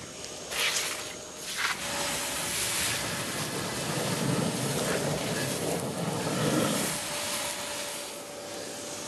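Kärcher WD3.600MP wet and dry vacuum's 1400-watt motor running with a steady whine while it sucks up wet sludge. There are a couple of sharp clicks early on. For about three seconds in the middle a loud, rough rush of sludge being drawn up the hose covers the whine.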